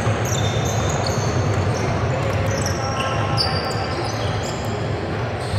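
Basketball game on a hardwood court: sneakers squeaking in many short, high chirps and a ball being dribbled, over a steady low hum and background voices.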